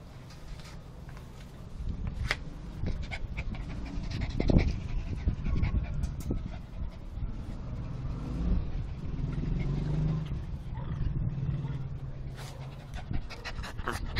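Small long-haired dogs panting and moving about close to the microphone, getting louder about two seconds in, with scattered knocks and rustles.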